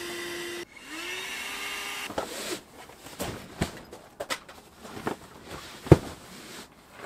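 Small electric air pump running with a steady hum. It cuts off just after half a second in, starts again rising in pitch, and stops for good about two seconds in. After that comes a string of sharp knocks and clicks, the loudest near the end.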